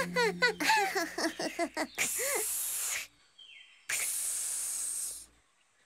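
A cartoon snake hiss sounds twice, each hiss about a second long, the second starting about four seconds in. Before them come a quick run of short, high cartoon vocal chirps.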